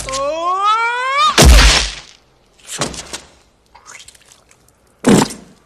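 A man's yell rising steeply in pitch for about a second, cut off by a heavy crash as he falls from a ladder and hits the ground. Two smaller knocks follow, and there is a sharp loud smack near the end.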